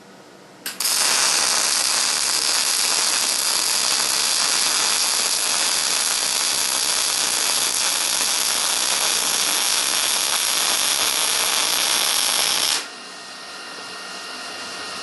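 Arc welding a bead on scrap steel: the arc strikes under a second in and crackles and hisses steadily for about twelve seconds, then cuts off suddenly. A fainter hiss carries on after the arc stops.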